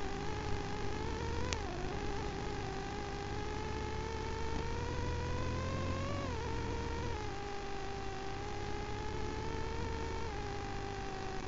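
KTM 950 Adventure's V-twin engine pulling under way, its pitch rising slowly for about six seconds, then dropping in two steps and easing off once more near the end, over a low rumble.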